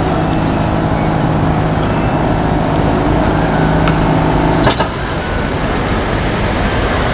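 A Lisbon yellow Carris electric tram passing close by, running on its rails with a steady low hum over a rumbling roll. About four and a half seconds in, the hum stops with a short clunk and the rolling rumble carries on.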